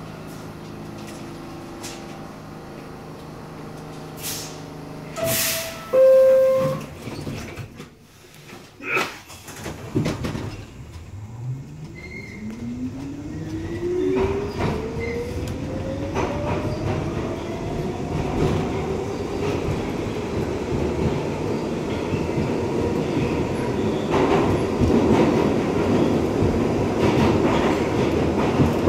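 R62A subway car standing at a platform with its doors open and equipment humming. About five seconds in, a two-tone door chime sounds, stepping down in pitch. A few seconds later the doors shut with knocks, then the train pulls away, its traction motors whining steadily up in pitch and the wheel noise on the rails growing louder.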